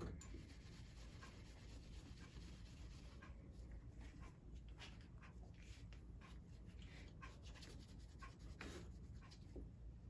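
Faint, irregular scratchy rubbing strokes of a pad being wiped over the steel of a pair of pliers, taking off cold bluing.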